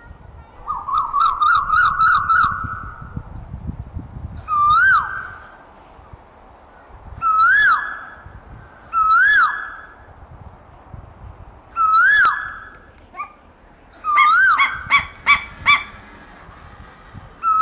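Asian koel calling: a rapid run of short whistled notes, then single loud rising-and-falling notes every two to three seconds, and another quick run of notes near the end.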